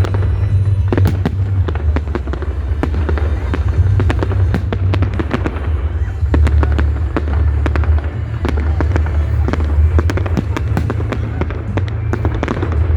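Fireworks display going off in quick succession: a dense, irregular stream of sharp bangs and crackles, many a second, over a steady low rumble.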